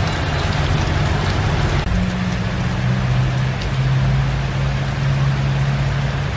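Heavy rain falling steadily on a wet road and tracks. About two seconds in, a low, steady engine hum comes in under it.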